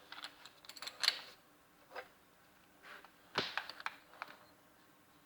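Handling noise: scattered clicks, knocks and rustles of objects being moved about, in a cluster at the start, a single knock about two seconds in, and a louder cluster about three and a half seconds in.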